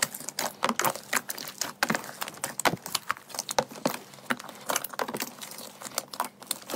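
Hands squeezing and kneading a large mass of slime, giving a fast, irregular run of sticky clicks and pops.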